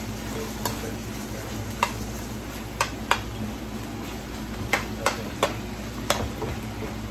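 A wooden spoon stirs chicken feet in a hot frying pan. The stew sizzles softly, and the spoon knocks sharply against the pan several times.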